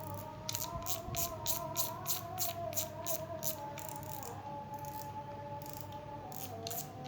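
Background music: sustained, slowly gliding tones over a fast, even ticking beat.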